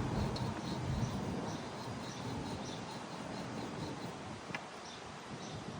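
Outdoor background with faint, high chirps repeating two or three times a second over a low rumble, and a single sharp click about four and a half seconds in.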